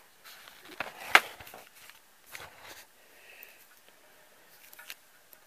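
Sharp plastic clicks and handling noises from a small push-in wire connector as stranded wires are pressed into it, the loudest click a bit over a second in and another near the end.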